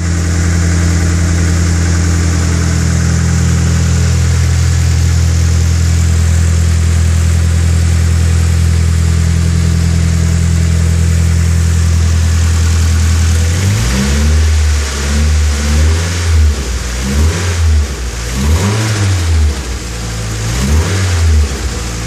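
Nissan SR20DET four-cylinder turbo engine idling steadily, then revved in a series of quick throttle blips from about two-thirds of the way in. The timing chain now runs with a new tensioner, which the owner says cured the rattle from the chain hitting the top guide rail.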